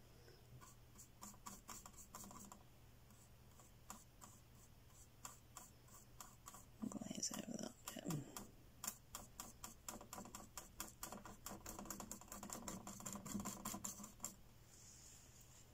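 Faint paintbrush tapping and dabbing acrylic paint onto a painting board: a long run of quick, irregular light ticks, a few a second, with a brief low sound about seven seconds in.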